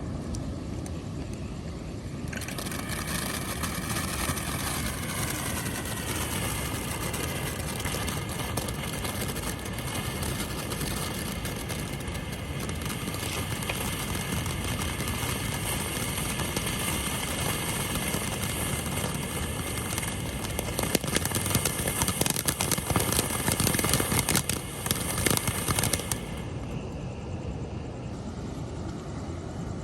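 Firework burning with a loud, steady rushing hiss and a whistling tone that starts about two seconds in. It crackles sharply for the last few seconds before it cuts off a few seconds before the end.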